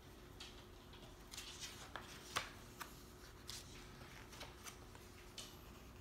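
Faint rustling and flicking of paper as the pages of a large hardcover book are turned by hand, in several short scattered bursts, over a faint steady hum.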